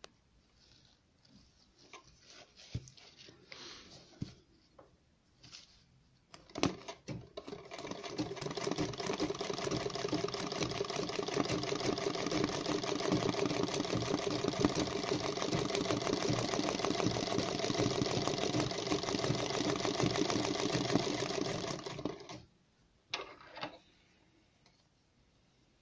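Sewing machine running fast and steadily for about fifteen seconds, filling in a design in freehand machine embroidery, then stopping sharply. A few light clicks of handling come before and after the run.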